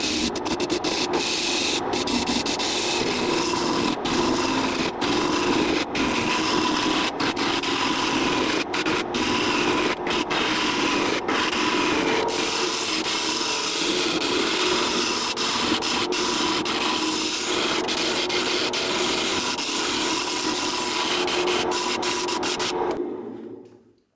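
Wood lathe running while a gouge cuts into the spinning wood blank: a steady scraping hiss over the lathe's motor hum, broken by many short gaps. It fades out near the end.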